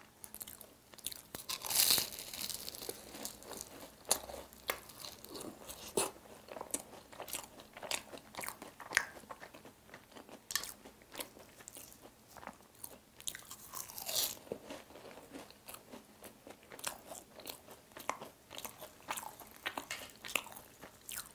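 Biting and chewing a flaky pastry egg tart: the crisp crust crunches and crackles in many small bites, with a louder crunch about two seconds in and another around fourteen seconds.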